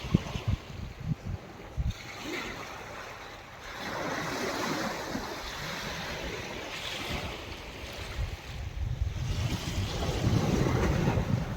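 Sea waves breaking and washing up a beach, with two swells, the louder near the end. Gusts of wind buffet the microphone in the first couple of seconds.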